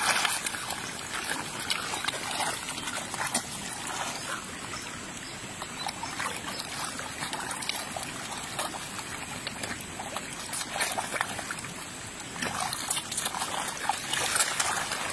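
A dense crowd of large river fish thrashing and splashing at the surface around a hand in the water: a steady wet churning with sharper splashes now and then, strongest at the start and near the end.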